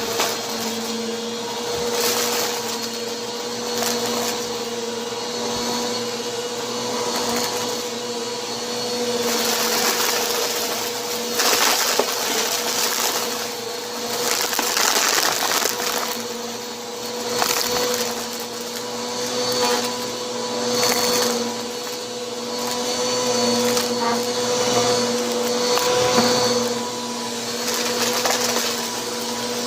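Bissell vacuum cleaner running with its brushroll spinning: a steady motor hum under loud rushing noise that swells and eases every couple of seconds. Crunching and crackling come through as it picks up dirt.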